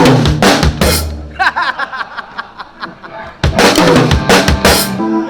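Drum kit played in two short bursts of fills on snare, toms and bass drum, one at the start and one about three and a half seconds in, with a lighter stretch between, as the drums are checked and set in the monitor mix.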